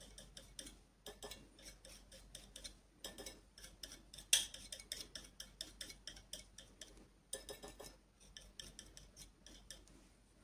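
Small flat brush dabbing acrylic paint onto a canvas: faint, irregular light taps and clicks, several a second, with one louder knock about four and a half seconds in.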